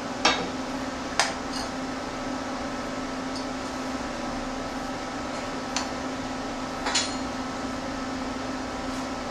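Steady hum with a background hiss, broken by four short metallic clicks and clinks from steel square tubing being set and pressed in place by gloved hands.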